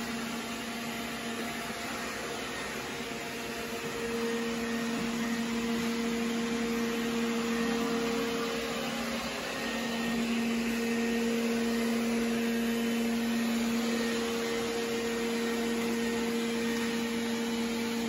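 Roborock S5 robot vacuum running its spot-clean cycle: a steady suction-fan rush with a humming whine from its motor, stepping up in loudness about four seconds in and dipping briefly around the middle.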